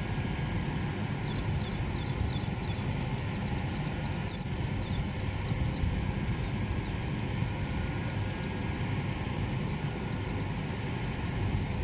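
Steady low rumble of wind on the microphone, with faint high chirps now and then.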